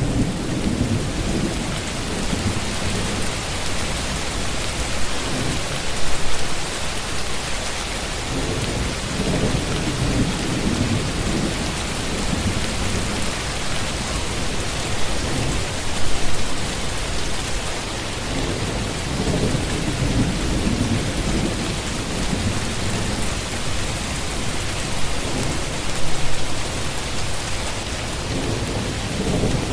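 Steady heavy rain hissing, with low rumbles of thunder that swell and fade several times underneath it.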